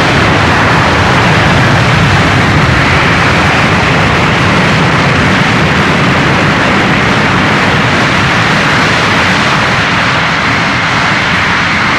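Military aircraft engine noise, loud and steady, easing slightly near the end, played back from an unfiltered vinyl LP.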